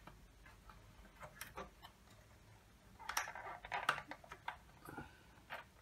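Scattered light clicks and scrapes of the plastic scale-lamp sockets and bulbs being handled and twisted inside a 1970s Pioneer TX-8500 II tuner's open chassis, busiest about three to four seconds in.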